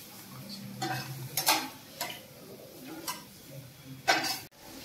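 Light taps and clicks against a steel plate as a rolled shawarma wrap is handled and pinned with toothpicks: a handful of short knocks spaced irregularly, the loudest near the end.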